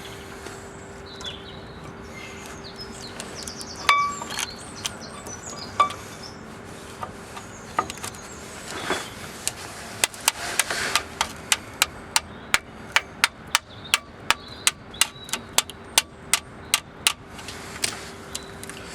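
Metal knocks and clicks from new brake pads being worked into a Toyota Hilux front disc brake caliper. There are a few scattered knocks, one with a ringing clink, then a run of quick, even taps at about three a second for several seconds, over a faint steady hum.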